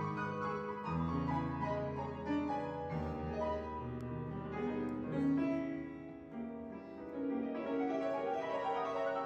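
Solo piano music: held chords over low bass notes.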